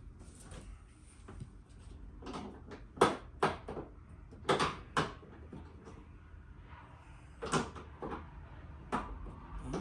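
Bumper parts and clips knocking and clacking as they are handled and pushed into place: about eight sharp, unevenly spaced knocks from about two seconds in.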